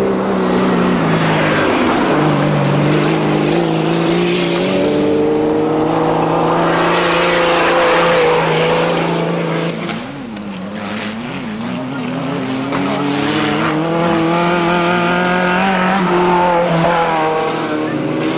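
Off-road race car engines running hard on a dirt track, their pitch climbing and falling again and again as they rev up and back off. About ten seconds in the engine sound briefly drops and wavers before building up again.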